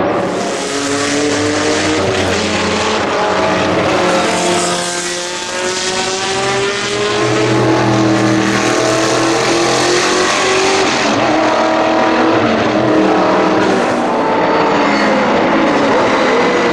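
1989 Aston Martin AMR1 Group C car's 6-litre V8 racing engine running hard, its pitch rising and falling.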